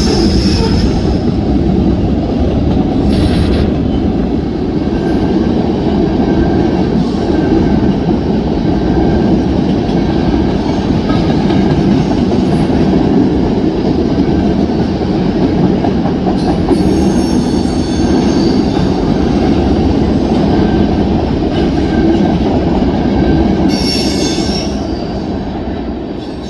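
Norfolk Southern manifest freight train rolling past, a steady rumble of wheels on rail with occasional short high-pitched squeals. The sound begins to fade near the end.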